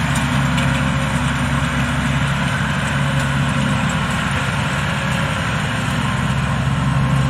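Small locally built rice combine harvester running steadily as it cuts and threshes rice: a constant engine hum with the din of the machinery.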